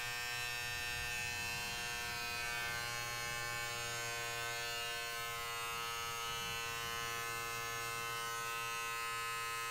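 Wahl Vanish foil shaver running in the hand, not on skin, giving a steady, even buzz that holds one pitch throughout.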